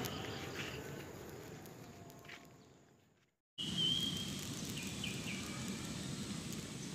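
Rural outdoor ambience that fades out to a moment of dead silence about three seconds in, then returns with a few short high chirps about four and five seconds in.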